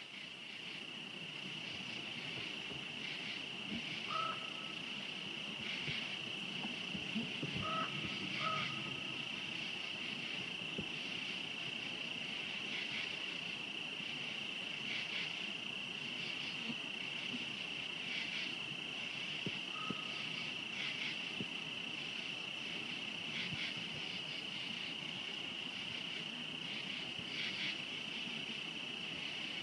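A steady chorus of night insects, cricket-like trilling held at one high pitch. A few short thin calls come through at about four seconds, twice around eight seconds, and again near twenty seconds.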